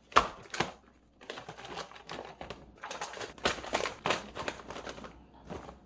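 Plastic freezer containers and bagged frozen food being handled and rearranged: two sharp plastic clacks, then a run of quick small clicks and crinkling of packaging.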